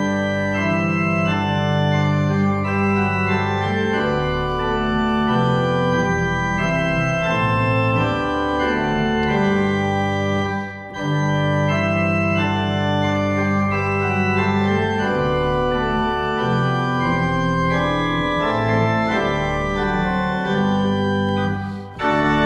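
Organ music of held chords and slow-moving notes, with a brief dip about halfway through and another just before the end.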